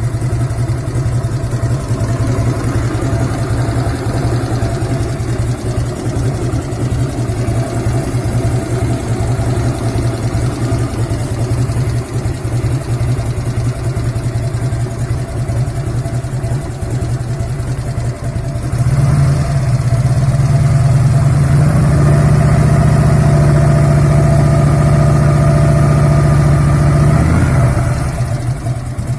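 1997 Harley-Davidson Road King's air-cooled Evolution V-twin idling, with the revs held higher for about eight seconds from about two-thirds of the way in before dropping back to idle. The engine is being run to show a metallic rattle low in the motor that the owner has been chasing since the rebuild.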